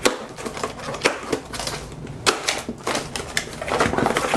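Cardboard parcel being cut and opened: several sharp snaps and clicks, about one a second, as the packing tape and plastic strapping are cut, then cardboard flaps rustling as they are pulled open near the end.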